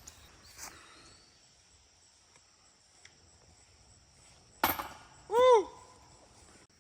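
Disc golf putt striking the chains of a metal basket with a sharp, jangling clash just past two-thirds of the way in, followed by a loud shout of "Woo!". A steady high insect trill runs underneath.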